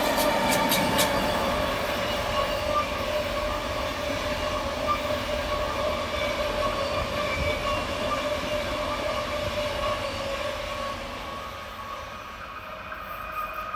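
A passenger train passes close by on a curve: an SBB Re 460 electric locomotive and IC2000 double-deck coaches, their wheels rumbling on the rails under steady whining tones. There are a few sharp clicks in the first second, and the sound eases slightly near the end as the train draws away.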